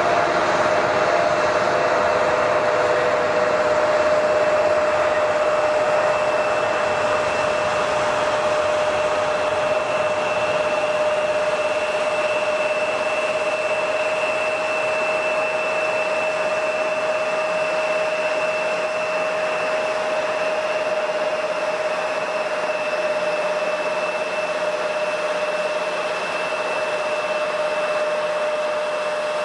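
Jet airliner engines running, a steady two-toned whine over a broad rushing hiss that eases slowly in loudness; the lower whine settles slightly in pitch near the start.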